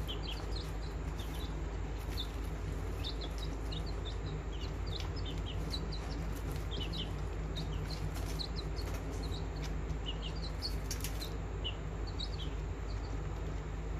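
Many short, high chirps from birds, coming thick and irregularly throughout, over a steady low hum.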